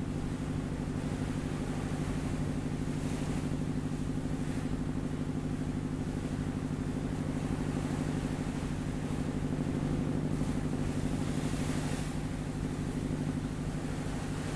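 Boat engine running steadily at one low pitch, with a fast, even throb; a hiss swells briefly a few times.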